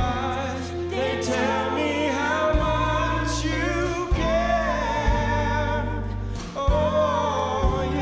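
Live band playing a slow ballad, a woman singing the lead over steady low bass and keyboard.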